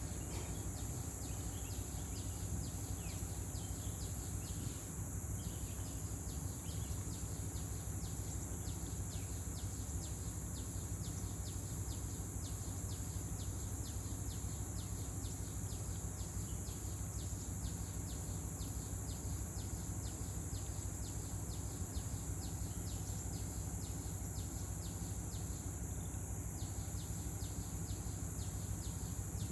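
Insects calling in the grass: a continuous high-pitched buzz with a quick, regular pulsing chirp over it, about three pulses a second, above a low steady rumble.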